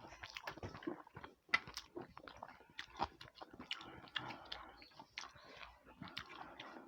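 People chewing food close to the microphone: a faint, irregular run of short clicks and mouth smacks.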